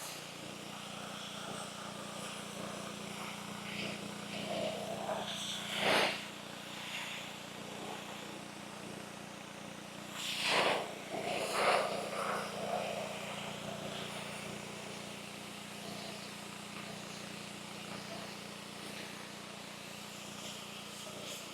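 Simpson ALH3425 pressure washer's Honda GX petrol engine running steadily under load while the water jet sprays. The spray rushes louder about six seconds in and again at around ten to twelve seconds.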